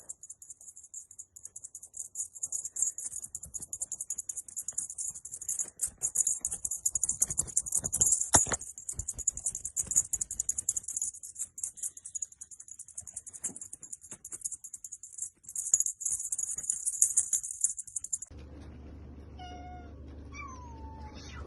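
A long stretch of fast, high-pitched rattling, then a steady low hum over which a cat meows, two short calls with falling pitch near the end.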